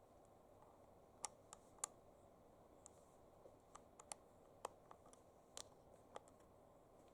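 A dozen or so light, sharp clicks at irregular intervals, like small hard objects being handled.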